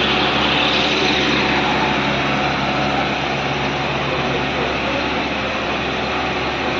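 Steady engine hum and road noise of a moving vehicle, heard from within it on the road.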